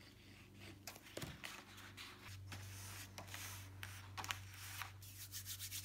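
Faint rustling and light clicks of large paper petals being handled and pressed together as they are glued, over a steady low hum.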